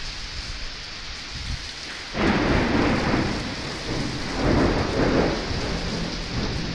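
Heavy rain pouring onto a street, then about two seconds in a sudden loud crack of thunder that rumbles on, swelling again a couple of seconds later before fading back under the rain.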